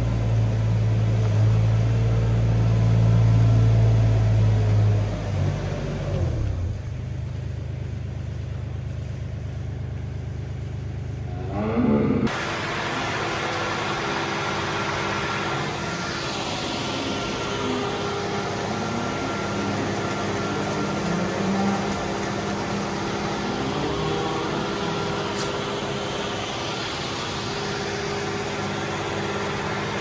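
A compact loader's engine running steadily, then slowing about six seconds in. About twelve seconds in it gives way suddenly to a steady machine hum.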